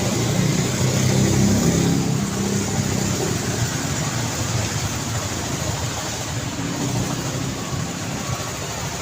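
Road traffic: a car engine passes close, loudest about a second or two in, then fades into a steady wash of traffic and tyre noise.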